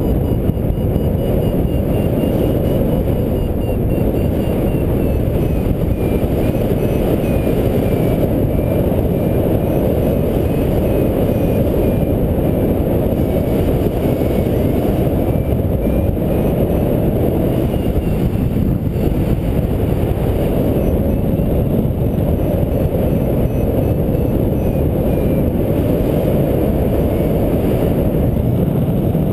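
Wind rushing steadily over the camera microphone in paraglider flight. A faint variometer beeps through it, its pitch drifting up and down with the climb.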